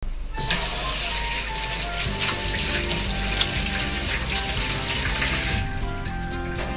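Kitchen tap running into a stainless-steel sink as hands are washed under it, shut off about five and a half seconds in. A light background melody plays throughout.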